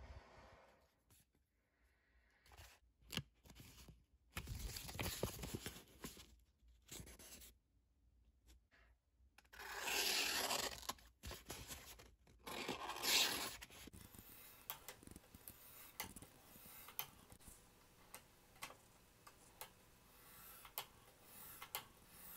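A home-made straight razor blade slicing into a sheet of paper, in three separate bouts of cutting: a test of the edge's sharpness. Faint scattered clicks follow near the end.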